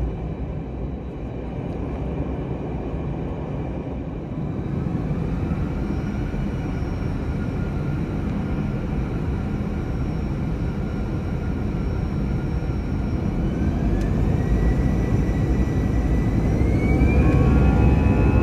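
Airbus A321 jet engines heard from inside the cabin beside the wing, spooling up for takeoff. A steady rumble grows louder throughout, and a thin whine rises in pitch in the second half as thrust builds.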